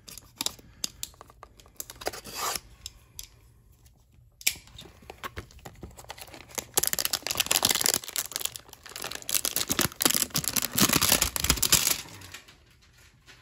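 Packaging of a trading-card hanger box being torn open by hand: a few light clicks and handling noises, a sharp crack partway in, then several seconds of steady tearing and crinkling that stops shortly before the end.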